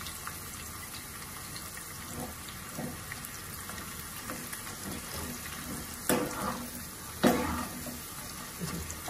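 Cornflour-coated corn kernels deep-frying in hot oil with a steady sizzle, stirred with a perforated steel skimmer in a steel pan. Two louder scrapes of the skimmer against the pan come about six and seven seconds in.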